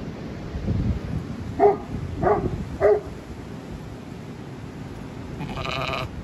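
Lamb bleating: three short, high calls in quick succession, about two-thirds of a second apart.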